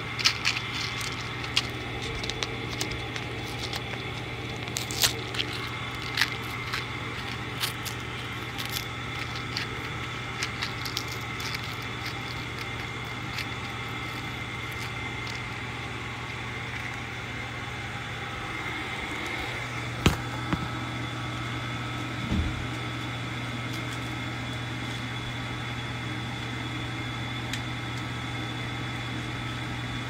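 Vacuum cleaner running steadily, with a low hum and a high whine, as small hard Nerds candies are sucked up, clicking and rattling through the nozzle in quick scattered ticks over roughly the first twelve seconds. A single loud click comes about twenty seconds in, and a short thump a couple of seconds later.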